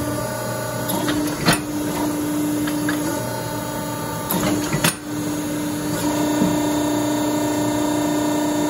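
Hydraulic forging press running, its motor and pump giving a steady hum that shifts slightly in pitch a few times as the press works a hot axe blank for punching the eye. Two sharp knocks, about a second and a half in and near five seconds.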